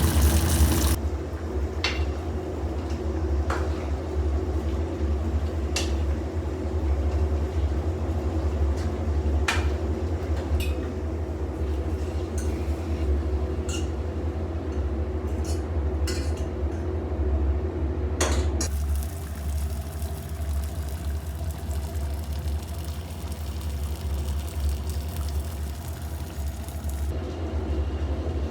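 Scattered light clinks of cups and cutlery over a steady low hum. A steady mid-pitched tone in the background cuts off suddenly about two-thirds of the way through.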